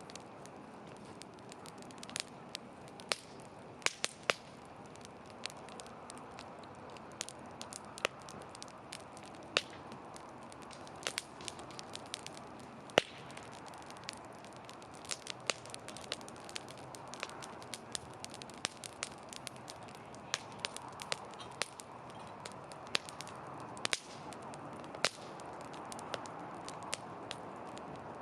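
Wood fire crackling: a steady hiss of burning with irregular sharp pops and snaps, now and then a louder crack.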